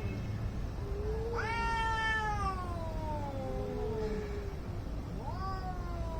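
Angry cats caterwauling at each other in a standoff. A long drawn-out yowl rises and then slowly falls over about two seconds, a lower, shorter call answers on either side of it, and a new howl rises near the end.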